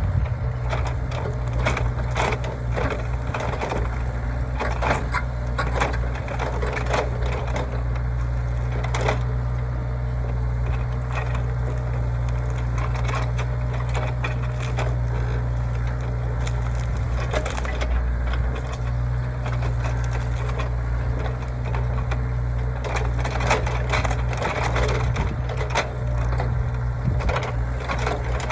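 Hyundai HY60 excavator's diesel engine running steadily, with repeated cracks and snaps of wood splintering as brush and roots are torn out and crushed during clearing and grubbing.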